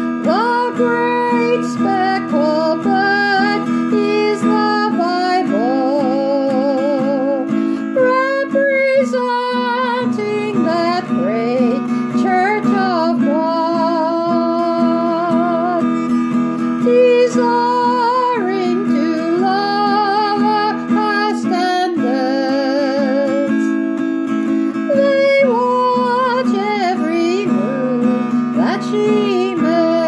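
A woman singing a country gospel song with a wavering vibrato while strumming an acoustic guitar.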